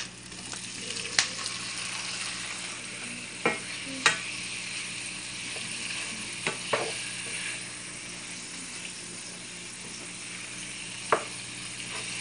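Pork cubes with onions and garlic sautéing in a frying pan: a steady sizzle, stirred with a wooden spatula that knocks sharply against the pan about six times.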